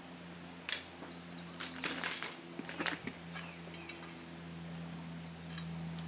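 Sharp metallic clinks and knocks of steel tongs and a crucible being handled during an aluminium casting pour, a few scattered strikes with the loudest about a second and two seconds in, over a steady low hum. A small bird chirps a quick run of descending notes near the start.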